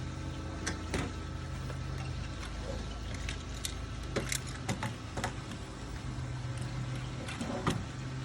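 Flat plastic screen wheel rolling 310 flat spline into a door frame's channel over fibreglass mesh: scattered clicks and crackles, with a steady low hum underneath that cuts in and out.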